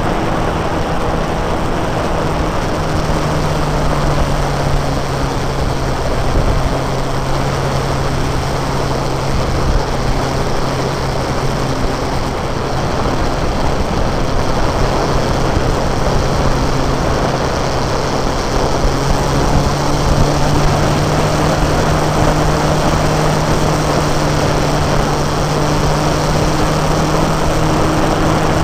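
Motorcycle engine running steadily at cruising speed, its note shifting slightly in pitch a few times, under a constant rush of wind and road noise.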